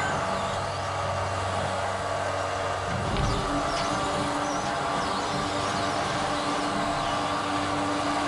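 Steady mechanical running hum as a 1964 Chevrolet C10 pickup is let back off a car trailer on its winch line. About three seconds in the hum changes pitch, with a single thump and a few light clicks.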